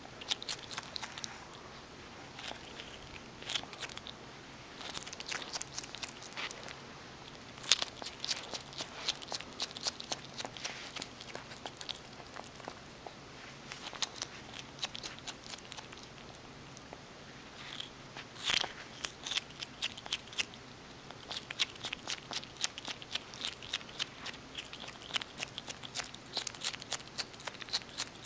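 A skunk chewing and biting food close by: runs of sharp little clicks and crunches, coming in irregular clusters with short pauses between.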